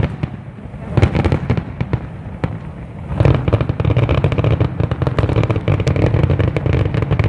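Fireworks going off in quick succession, a stream of bangs and crackles. It thins briefly near the start and then builds into a dense, continuous barrage from about three seconds in.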